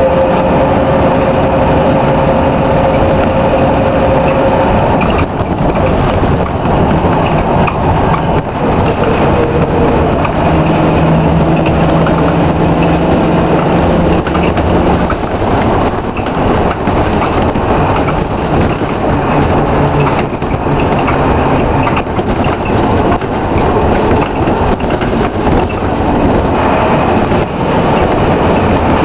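Inside a moving Scania K93CRB single-decker bus: its rear-mounted 9-litre six-cylinder diesel engine running under way, with road noise and interior rattles. The steady tones in the engine and drivetrain note change pitch a few times.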